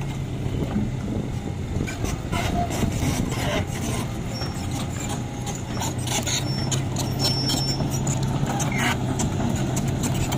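Heavy diesel engines of an Isuzu dump truck and a Hyundai excavator running with a steady low hum. From about two seconds in until near the end, many short metallic clanks and knocks sound over it, with a couple of brief high squeaks.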